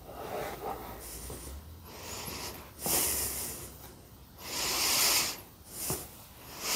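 A person breathing heavily: four loud, hissing breaths in the second half, the last the longest and loudest.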